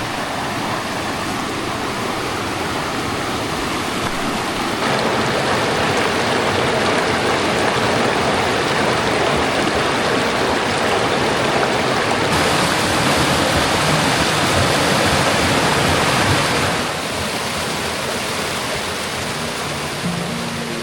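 Mountain creek water rushing over rocks, a steady wash of noise that grows louder about five seconds in and eases back again near the end.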